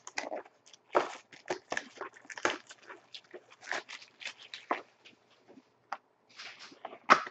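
Plastic shrink wrap being torn and pulled off a sealed trading-card box: irregular crinkling and crackling.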